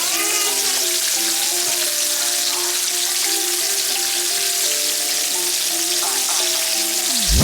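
Chicken frying in hot grease, a steady sizzle, over background music with a slow melody.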